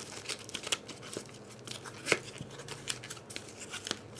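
A puzzle cube's packaging being opened by hand: small clicks and paper rustles, with one sharper click about two seconds in.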